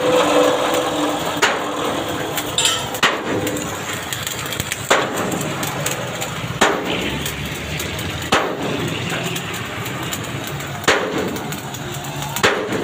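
Hammer blows on steel: about seven sharp strikes at uneven gaps of one to two and a half seconds, over a steady background noise.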